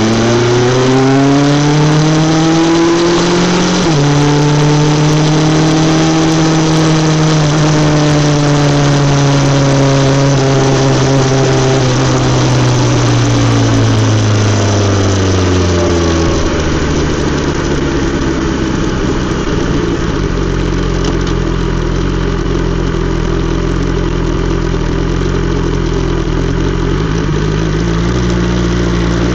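BMW S 1000 XR's inline-four through an Akrapovic exhaust, revving up with a sudden drop in pitch about four seconds in like an upshift, then climbing slowly. After about twelve seconds the revs fall away, and the engine settles into a low steady note for the last dozen seconds.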